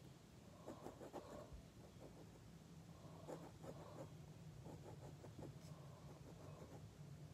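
Faint scratching of a pen tip on paper, short quick strokes coming in little clusters as lines and shading are drawn.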